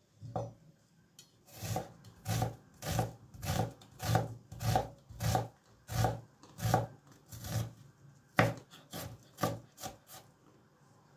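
Chef's knife chopping a red onion on a wooden cutting board: a steady run of chops about one and a half a second, then the loudest chop about eight seconds in and a few quicker ones after it.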